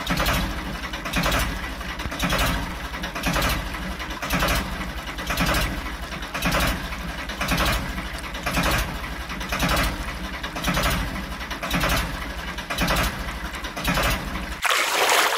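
Tractor engine sound effect chugging steadily, about two beats a second over a low rumble. Near the end it breaks off into a short hiss, then comes back.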